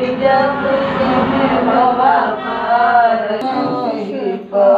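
A group of women singing a Bhojpuri folk song to the goddess in unison, without instruments, with long, drawn-out notes.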